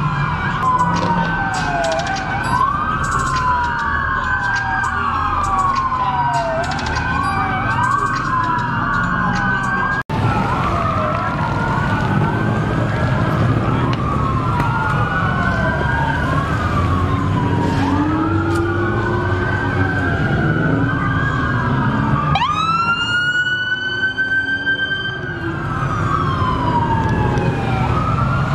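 Several police car sirens wailing at once, their rising and falling tones overlapping out of step, over a low rumble of engines. Past the middle, one siren close by starts up with a quick rising sweep and then climbs slowly into its wail.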